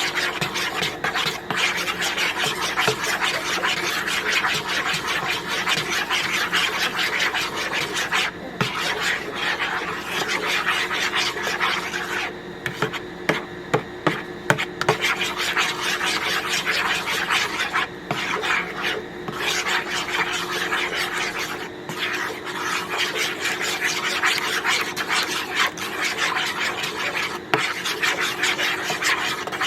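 Rapid, continuous scraping of a utensil stirring inside a container, breaking up clumps of milk replacer powder in warm water, with a few brief pauses.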